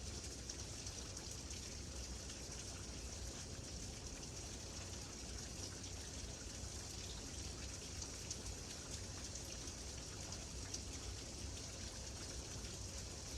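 Steady rain falling, with many small drops ticking separately over an even hiss and a low rumble underneath.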